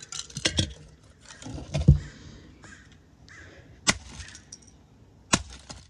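Rubber mallet striking a Lenoxx Sound CDR-190 plastic CD player/radio boombox several times: sharp cracks and one heavy thud about two seconds in, with loose plastic pieces rattling.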